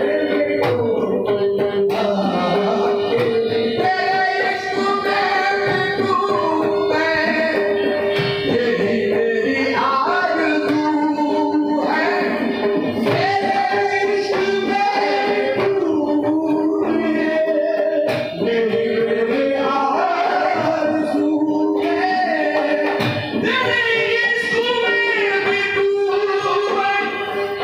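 Qawwali: voices singing long, bending phrases over steady held instrumental notes.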